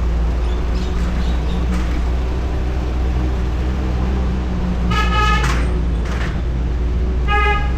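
Steady low vehicle engine and road drone, with a car horn honking twice: a half-second honk about five seconds in and a shorter toot near the end.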